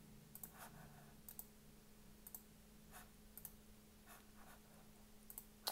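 Faint computer mouse clicks, scattered about once a second, with a sharper click near the end; otherwise near silence with a low steady hum.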